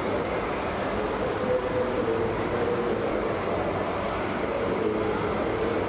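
Radio-controlled model truck running steadily: a constant mechanical noise with a faint hum that wavers slightly in pitch.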